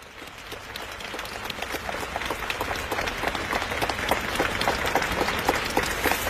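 Large arena concert audience clapping, a dense patter of many hands that grows steadily louder.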